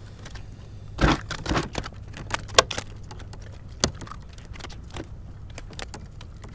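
Handling noise from a freshly caught fluke being held and unhooked on a plastic kayak: a burst of rustling and knocking about a second in, then scattered sharp clicks and knocks.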